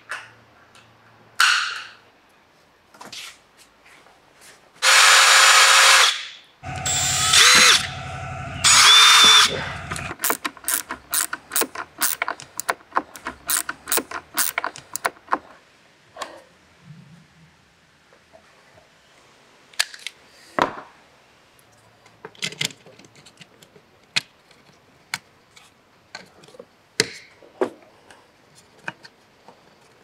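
Power drill running in two short spells, its motor whining up and down, followed by a rapid run of sharp clicks and then scattered small clicks and taps of a screwdriver working the terminal screws of a Garmin Power Switch.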